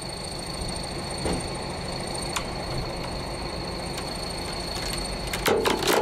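Steady hum of a vehicle engine running at idle, with a thin steady high tone over it and a quick run of clicks and knocks near the end.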